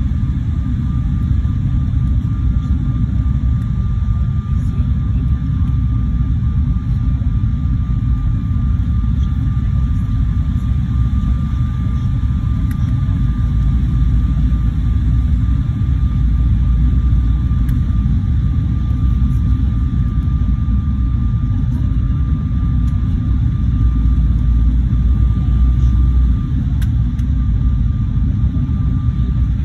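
Jet airliner cabin noise on final approach: the steady low rumble of the engines and airflow heard from a window seat. A thin steady whine sits over it and stops near the end.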